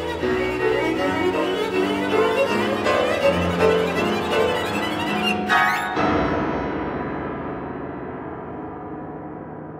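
Cello and piano playing a fast, busy passage of many short notes. About five and a half seconds in, a loud chord is struck and left ringing, dying away slowly with a bell-like resonance.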